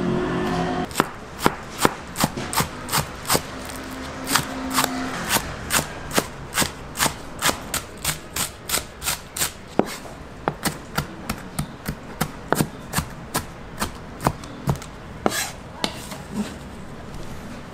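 Kitchen knife chopping green onions on a plastic cutting board: a steady run of sharp knocks, about three a second, with a brief pause near four seconds in, stopping shortly before the end.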